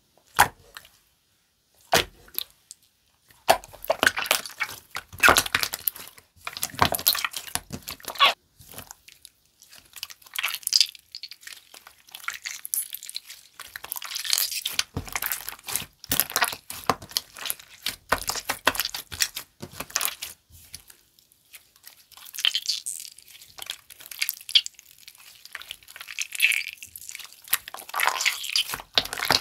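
A water-glue-based slime being squished, pressed and stretched by hand, making sticky crackling and popping sounds. Two single sharp pops come first, then the crackling runs on in dense bursts.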